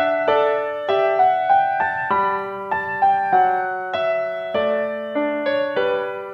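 Background piano music: single notes and chords struck several times a second, each fading away.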